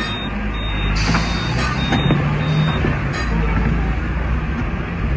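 Hong Kong double-decker tram, teak-bodied sixth-generation car, heard from inside while running: a low motor hum over the rumble of wheels on rail. A few short high beeps sound during the first three seconds.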